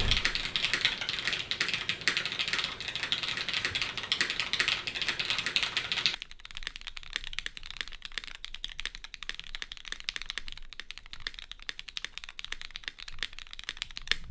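Fast typing on a custom mechanical keyboard with lubed linear Cherry MX Black switches in an aluminium plate and GMK keycaps: a dense run of keystrokes. About six seconds in the sound abruptly becomes quieter and thinner, with less bottom end, while the typing goes on.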